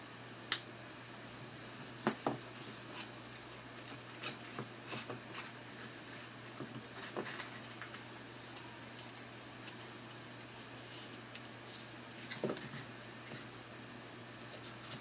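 Scattered light clicks and taps of thick cardboard terrain pieces being handled and slotted together into a set of steps, with sharper clicks about half a second in, around two seconds, near seven seconds and at twelve seconds.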